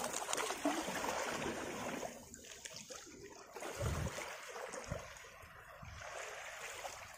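Small waves washing and lapping on a gravelly sand shoreline, louder in the first two seconds, with a couple of short low thumps about four and five seconds in.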